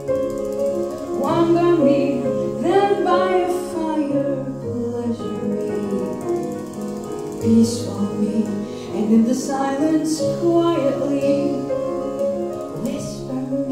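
Recorded music playing over a high-end hi-fi system's floor-standing loudspeakers: a singing voice over piano accompaniment, with held bass notes that change every few seconds.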